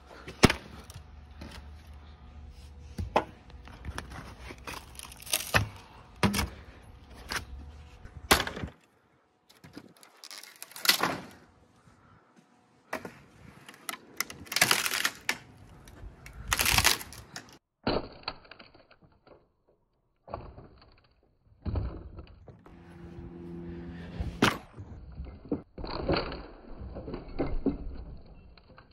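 Timber beams of a wooden swing set being knocked apart: irregular heavy blows on the wood, with cracking and splintering as the beams break.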